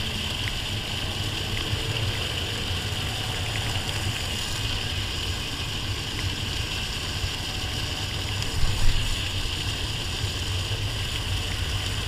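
Steady low wind rumble buffeting the microphone over a constant hiss of running river water, with a brief louder bump about nine seconds in.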